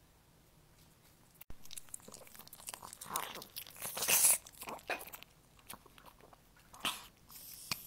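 Small dog chewing and licking a slice of deli turkey close to the microphone: irregular short chewing sounds starting about a second and a half in, loudest about four seconds in.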